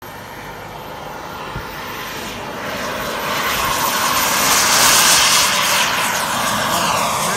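Radio-controlled model jet on its takeoff run, its engine noise rising steadily as it comes closer. The sound is loudest about five seconds in as the jet passes close by, then eases a little.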